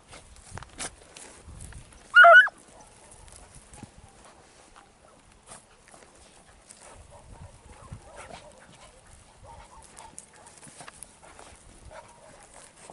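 A beagle gives one short, loud bark about two seconds in, against faint scattered rustles and ticks of the dogs moving over dry ground.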